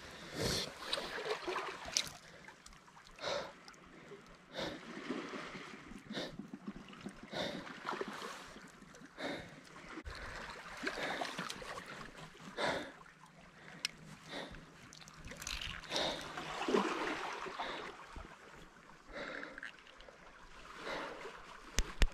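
Sea water splashing and sloshing in irregular bursts about once a second.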